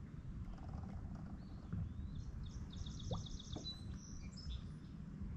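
A songbird sings a quick run of about eight repeated high notes, then a few whistled notes, lasting about a second and a half, starting about two seconds in. A steady low rumble lies under it.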